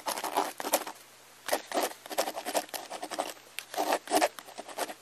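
Chalk writing on a chalkboard: scratching, tapping strokes in three or four short spurts as a maths series is written out, over a faint steady low hum.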